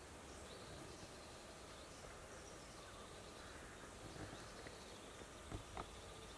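Faint open-air ambience with scattered faint, distant bird chirps, and two soft clicks in quick succession near the end.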